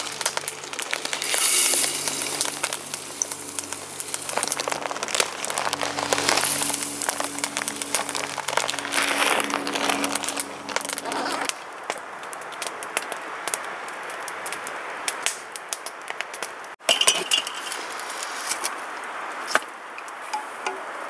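Dry rolled oats pouring into an empty stainless steel pot, a rattling hiss of many small clicks, over background music with low sustained notes that stops about halfway through. Afterwards a cup scoops oats from the pot, with a few light metal clinks.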